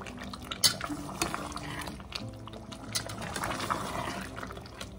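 A steel spoon stirring mutton and chopped tomatoes in a stainless steel pressure cooker over a high flame, with a light sizzle and a few sharp clinks of the spoon against the pot, over background music with held notes.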